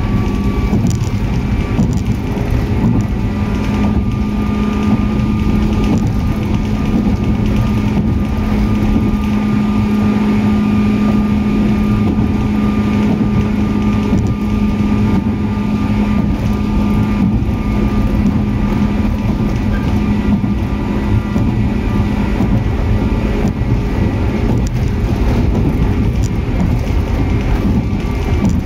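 103 series electric train running at a steady speed: the MT55A traction motors and gears give a steady hum over low wheel-and-rail rumble. The hum fades out about three-quarters of the way through.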